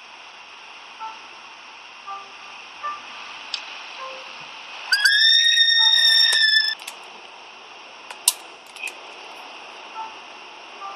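A woman's shrill scream: one high, held note lasting nearly two seconds, starting about five seconds in, over a steady hiss. A sharp click follows a little later.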